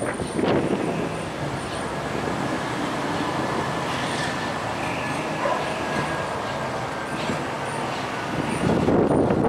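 Diesel-electric freight locomotive running light at low speed, its diesel engine running steadily as it rolls along the track.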